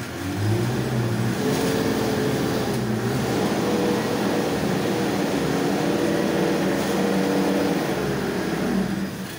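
An engine running steadily, with a low, even hum, starting just after the beginning and dying away near the end.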